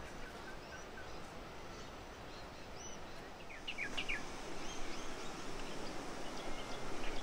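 Small birds chirping in short, high calls over a steady background hiss. The hiss and the chirping grow louder from about halfway in.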